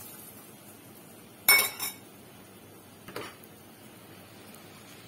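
Kitchenware clinking: two sharp clinks close together about a second and a half in, and a fainter one near three seconds, over the faint steady sizzle of flour frying in oil in a pan.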